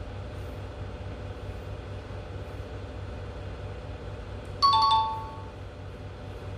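Educational app's two-note ding-dong chime, a higher note falling to a lower one, sounding once about four and a half seconds in as the correct answer drops into the box. A faint steady hum runs underneath.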